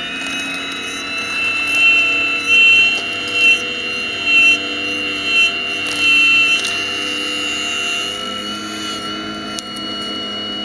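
Radio-controlled scale Hitachi 870 excavator's drive whining steadily at a high pitch, surging briefly louder about six times between about two and six and a half seconds in as the arm and bucket dig into the soil and lift a load.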